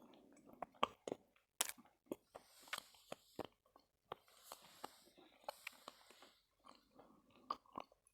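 Close-up chewing and crunching of Khrapovsky edible chalk: a dense run of sharp crisp crunches and clicks, with gritty grinding between bites.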